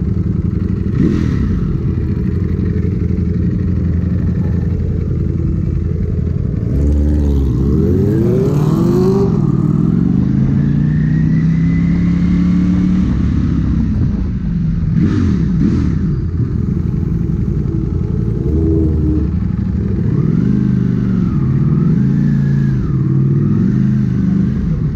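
Ducati Panigale V4S superbike's V4 engine riding at low city speed, the revs rising and falling several times as the bike pulls away and shifts gear, with a long climb in pitch around the middle.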